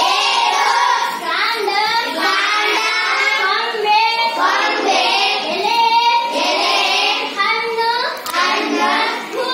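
A child singing in a sing-song line of phrases, with a few longer held notes.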